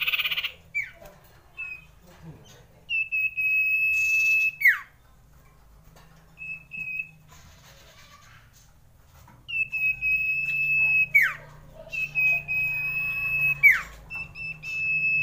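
Common iora singing: long, steady high whistles, each held about a second and a half and ending in a quick falling slur. The whistle comes four times, with short chirps between.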